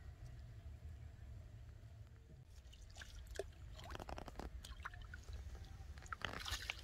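Faint splashing and light clicks in shallow water, clustering near the end, over a steady low rumble.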